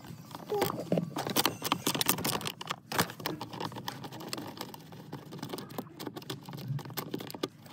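Quick, irregular light clicks and taps of hand work on a car dashboard, with tools and plastic trim parts knocking against each other.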